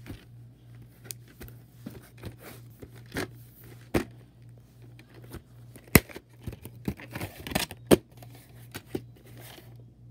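VHS tapes and their plastic clamshell cases being handled: a string of plastic clicks, knocks and rustles as a case is opened and a cassette lifted out, the sharpest click about six seconds in and another near eight seconds. A low steady hum runs underneath.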